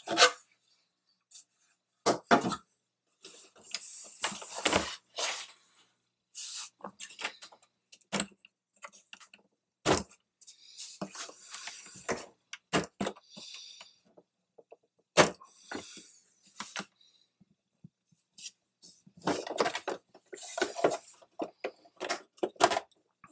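Hands handling hard plastic parts of a radio-controlled model truck: irregular clicks, knocks and rubbing as the clear plastic top of its chassis box is worked loose and lifted.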